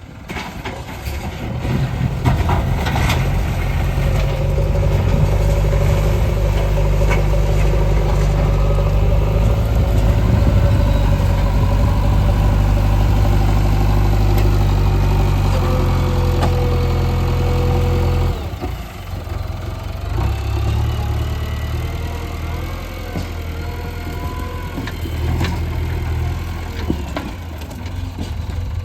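JCB 3DX backhoe loader's diesel engine working under load. It rises about two seconds in, runs heavily for a long stretch, then eases to lower revs about two-thirds of the way through, with a few clanks.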